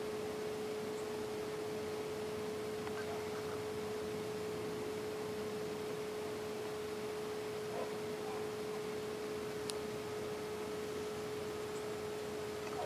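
A steady pure tone at one unchanging pitch, just below 500 Hz, over a faint hiss, with a brief click about ten seconds in.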